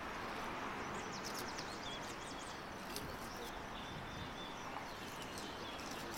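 Small birds chirping over steady outdoor background noise: a quick run of high chirps about a second in, then thin high whistles. A few faint clicks sit among them.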